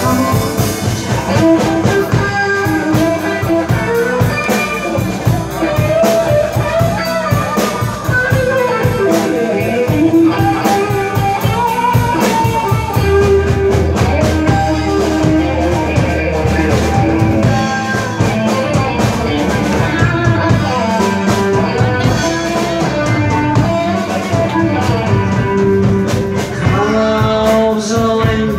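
Live band playing a song: a man singing over electric guitar and drum kit.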